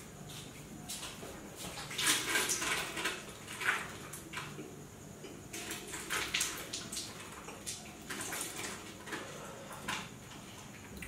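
A man breathing hard through his mouth in uneven hissing puffs, blowing air out and sucking it in, as he reacts to the burn of an extremely hot chili chip.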